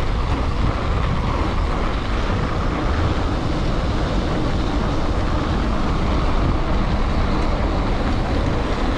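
Steady rushing noise of a mountain bike rolling fast down a packed-snow trail: wind buffeting the microphone over the rumble of Schwalbe Ice Spiker Pro studded tyres on the snow.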